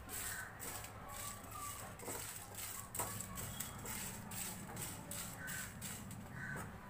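Whole coriander, fennel and cumin seeds with dried red chillies being stirred with a silicone spatula in a hot pan as they dry-roast: a faint, repeated rustling scrape of seeds over the pan, a few strokes a second.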